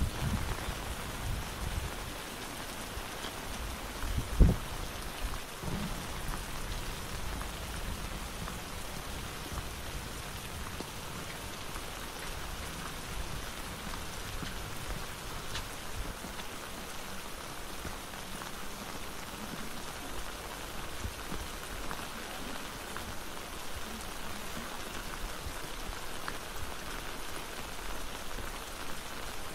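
Steady rain falling, an even hiss throughout. A few low thumps come in the first few seconds, the loudest about four and a half seconds in.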